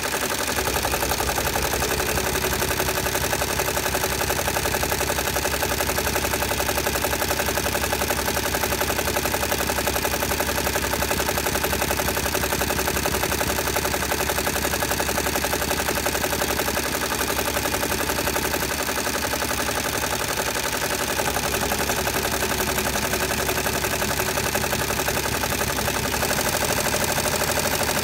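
Multi-needle embroidery machine stitching steadily, a fast, even mechanical chatter of needle strokes. Its tone shifts slightly a little past halfway and again near the end.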